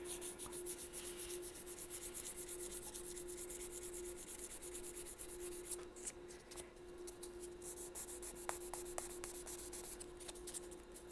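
Hand sanding on a wooden clarinet joint by the thumb rest, in quick, even rubbing strokes, smoothing the spot flush so nothing is felt under the hand. A few small clicks come about two-thirds of the way through.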